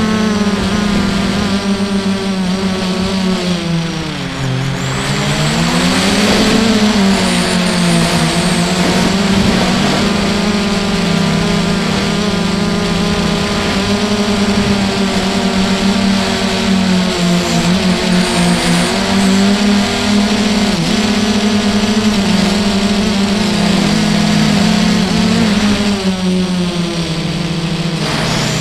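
Brushless motors and propellers of an Armattan REV2 FPV quadcopter in flight, heard through its onboard camera as a steady buzzing whine. The pitch drops about four seconds in and climbs back a couple of seconds later as the throttle changes.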